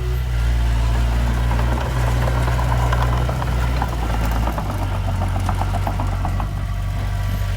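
Heavy earthmoving machine's diesel engine running steadily, its pitch stepping down slightly about halfway, with a rapid clatter over the middle few seconds.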